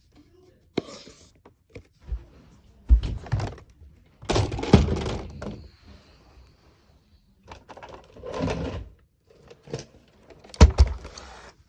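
Plastic clacks, thunks and short sliding rasps from Nerf blasters being handled and reloaded, as a series of separate knocks with a few longer scraping bursts and a sharp knock near the end.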